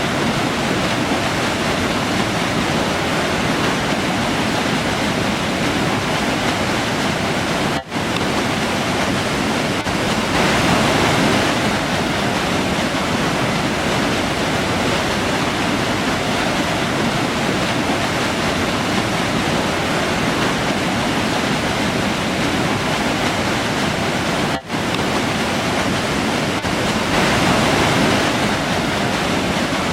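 River rushing, a steady dense water noise that swells slightly twice. It drops out for an instant about eight seconds in and again near twenty-five seconds.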